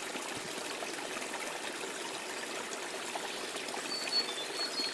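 Pond water trickling steadily, with small splashes at the surface where fish crowd to feed. A few brief high chirps near the end.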